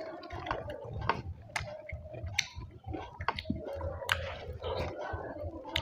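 Close-up chewing of rice and curry: wet, squishy mouth sounds with irregular sharp clicks and smacks.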